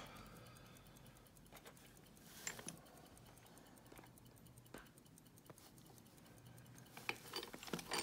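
A few faint, short metallic clicks of keys on a ring being handled on a plastic parts tray, over near silence, with a brief cluster of louder clicks near the end.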